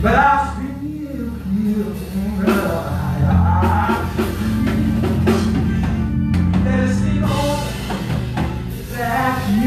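Preacher singing into a microphone over live church band music with steady bass and drums.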